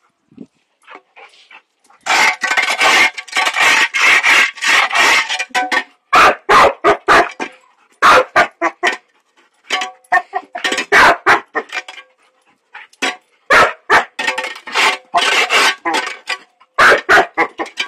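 Puppy barking in rapid repeated bursts, agitated by a metal shovel being scraped over concrete paving. Quiet at first, with the barking starting about two seconds in.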